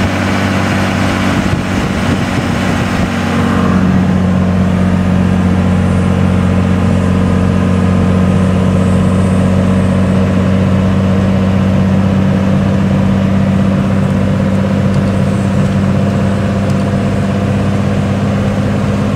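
A 24-valve Cummins 5.9-litre inline-six turbodiesel in a 2002 Dodge Ram pickup running steadily under heavy load as it tows a trailer carrying a roughly 22,000 lb bulldozer at low speed. It is a steady drone that gets louder about three and a half seconds in.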